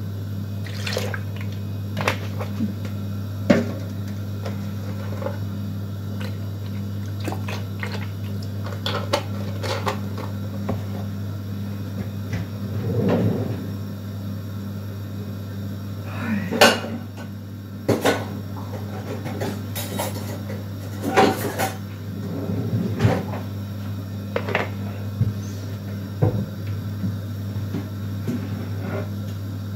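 Kitchen handling noises while crepe batter is being prepared: scattered knocks and clinks of a mixing bowl, utensils and cupboard doors, loudest about halfway through, over a steady low hum.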